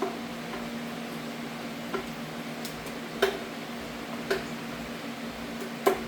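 Scattered light metallic clinks and taps from engine parts and hand tools being handled during an engine teardown, about five spread out, over a steady low hum.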